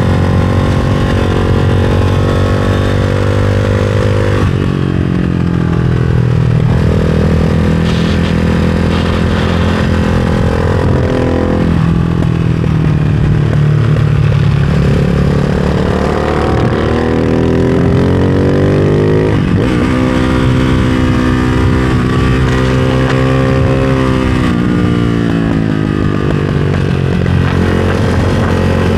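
Ducati Hypermotard 698 Mono RVE's single-cylinder engine through a full race exhaust, ridden hard on track. The pitch climbs as it revs out, drops sharply several times at gear changes or throttle closes, sags once, and climbs again.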